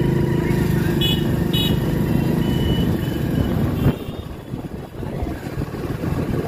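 Motorcycle engine running steadily under way, its low hum dropping out suddenly about four seconds in, leaving a quieter rushing noise. Two short high beeps sound about a second in.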